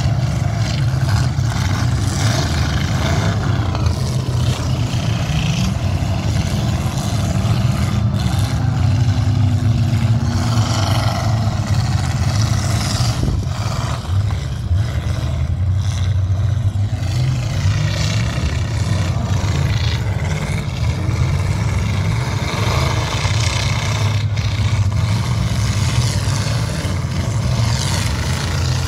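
Engines of several demolition derby cars and trucks running and revving over a steady low rumble, with a few sharp knocks.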